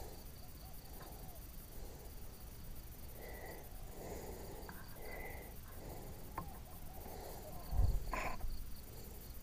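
Insects trilling steadily in high, even tones. Two short chirps come a few seconds in, and a low thump comes about eight seconds in.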